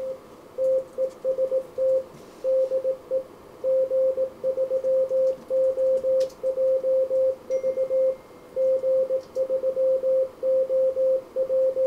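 Morse code sidetone from an Icom IC-7300 transceiver's memory keyer, sending the stored CW message "TEST TEST DE G3OJV" while transmitting. A single mid-pitched beep keyed on and off in dots and dashes at a steady speed.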